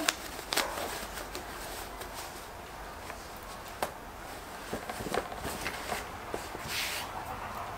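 Fabric rustling and scattered light clicks as a lined, zippered cloth pouch is pushed into shape and patted flat on a cutting mat, with a short rustle about seven seconds in.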